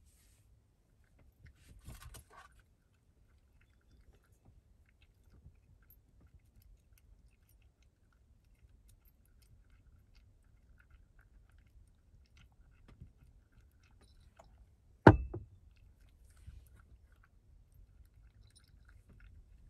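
Cat crunching dry food pellets from a ceramic bowl, a faint, steady run of small crunches. About three-quarters of the way through, a glass beer bottle is set down on the wooden table with one sharp knock, the loudest sound.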